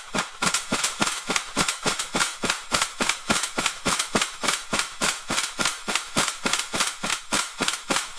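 Sharp clicks repeating evenly, about four or five a second, in a steady mechanical rhythm.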